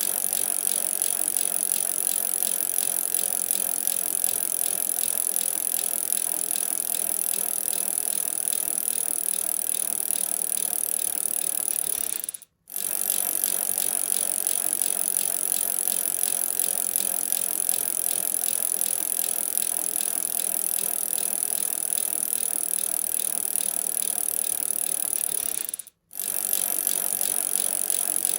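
Bicycle chain and drivetrain running with a steady, fast rattling and ticking. The sound cuts out for a split second about halfway through and again near the end.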